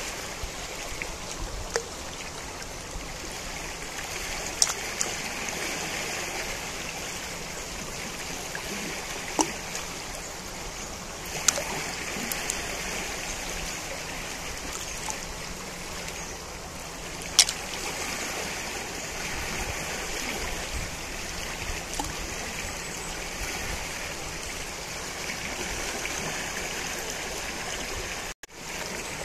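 The Najerilla river flowing: a steady rush of running water, with a few brief sharp clicks or splashes now and then. The sound cuts out for an instant near the end.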